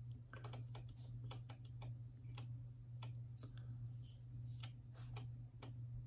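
Faint, irregular clicking like typing on a computer keyboard, over a steady low hum.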